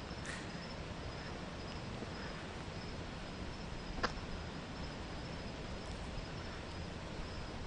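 Faint, high chirping of crickets repeating over a steady low hiss, with one sharp click about four seconds in.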